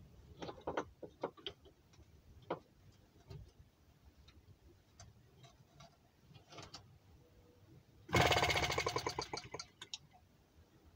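Light clicks and taps from handling an M12b 2.6 cc four-stroke model gas engine, then about eight seconds in the engine fires and runs in a fast, even stutter for about a second and a half before dying away. The owner puts the failure to keep running down to flooding with too much fuel.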